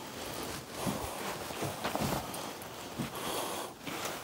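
Quiet, irregular handling and movement noises: soft knocks and rustles of someone shifting about and touching objects.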